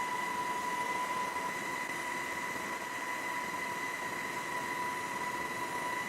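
Steady rushing noise with a constant high-pitched whine running through it, unchanging throughout.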